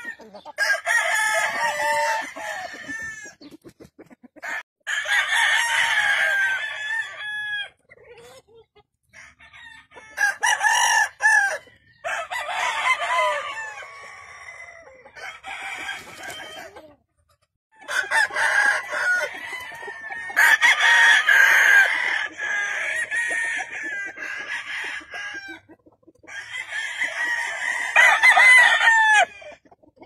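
Several gamefowl roosters crowing in turn around the pens, about one crow every few seconds, some overlapping one another.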